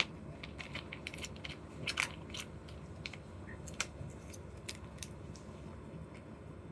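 Scattered crackles and clicks of candy and toy packaging being handled and opened, busiest in the first few seconds and loudest about two seconds in.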